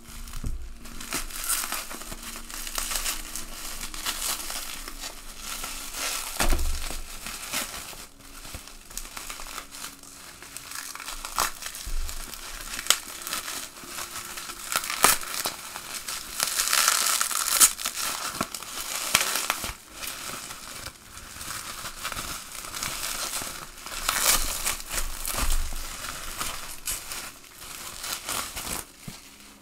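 Plastic bubble wrap crinkling and crackling as it is slit with a knife, torn open and pulled away from a box by hand, with a few dull thumps of handling.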